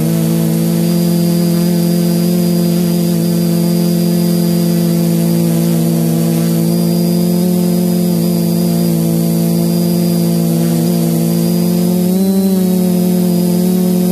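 Quadcopter's four Sunnysky 980 kV brushless motors spinning 10x4.5 APC propellers, a loud steady drone heard from the onboard camera as it climbs after take-off. The pitch wavers briefly about twelve seconds in as the throttle changes.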